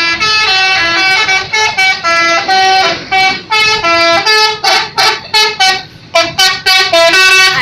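Bus telolet horn, a multi-tone musical horn, playing a loud, rapid tune of short notes that step up and down in pitch.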